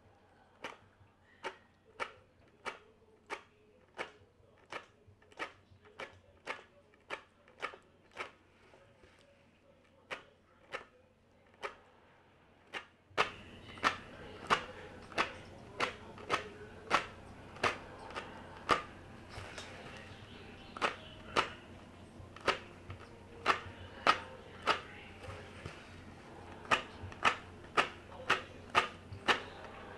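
Metal tweezers clicking sharply over and over, about one and a half to two clicks a second, as knots are plucked from a wig's lace frontal. The clicks pause briefly about eight seconds in, and a steady hiss behind them gets louder from about thirteen seconds.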